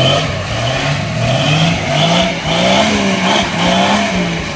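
Jeep Wrangler YJ engine revving in repeated rising pulls, its pitch climbing and holding, as the Jeep churns through a deep mud rut.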